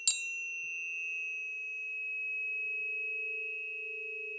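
Planetary tuning forks struck with a quick double metallic tap at the start, then ringing on as a steady pure low tone with a fainter high tone above it.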